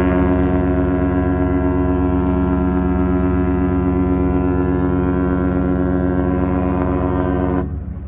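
A Royal Caribbean cruise ship's horn sounding one long, steady blast that cuts off shortly before the end, after about seven and a half seconds.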